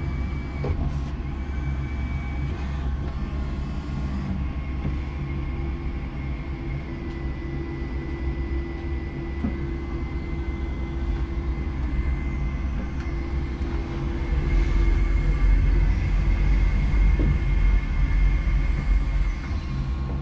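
Electric forklift's hydraulic pump motor running with a steady whine as the mast and forks are worked, over a low rumble that gets louder for several seconds near the end.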